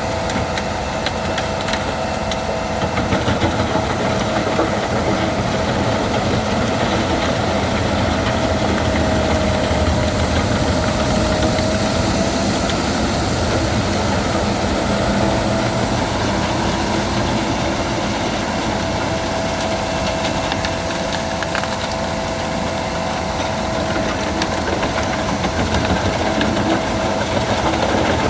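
Albach Diamant 2000 wood chipper running steadily, with a steady whine that dips a little in pitch about ten seconds in before recovering.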